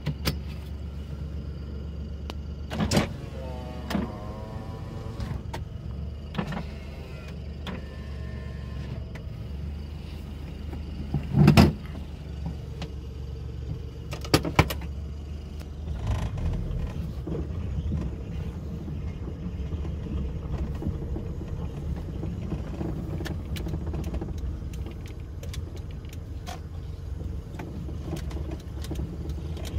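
Honda Today kei car engine idling, heard from inside the cabin, with a few sharp clicks and knocks. From about halfway the engine runs louder and rougher.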